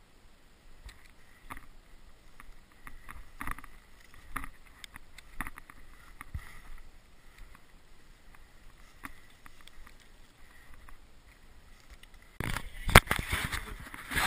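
Faint, irregular crunching of footsteps through snow, with light rustling of gear. Near the end there is a sudden, much louder rush of noise with one sharp knock.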